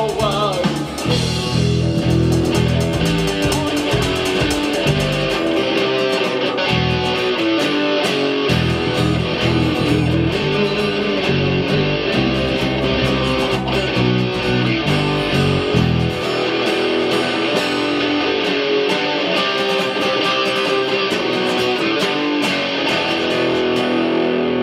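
Instrumental rock passage led by guitars over bass and drums; the low bass and drum part drops away about two-thirds of the way through, leaving lighter guitar playing.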